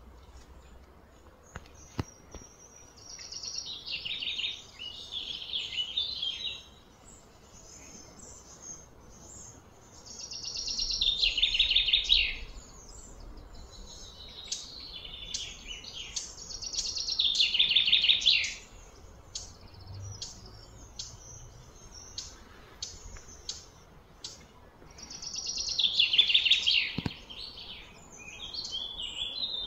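High-pitched chirping calls in about five bursts of two to three seconds each, each swelling in loudness and then stopping short.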